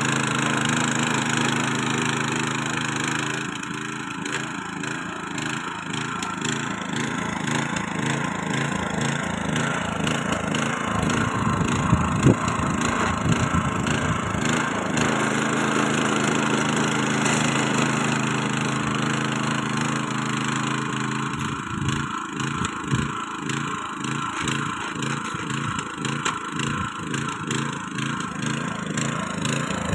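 Walk-behind rotary power tiller with a small petrol engine running under load while its rotary tines churn dry, stubbly soil, with crackling from the tines and a sharp knock about twelve seconds in.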